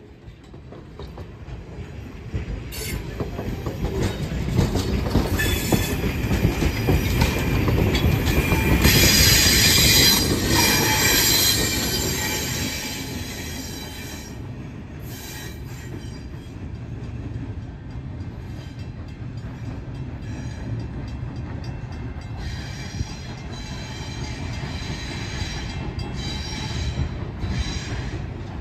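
Passenger coaches rolling past on steel wheels, with a low rumble and wheel clicks and a high, shifting squeal from the wheels on the curved track. The squeal starts a few seconds in, is loudest about nine to ten seconds in, fades as the train moves away, and comes back more faintly near the end.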